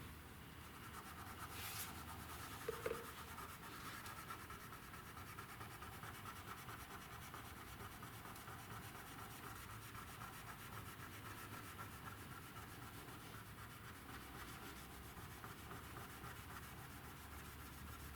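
Faint steady rubbing of an applicator working scratch-repair polish back and forth over car paintwork, with a small click about two seconds in.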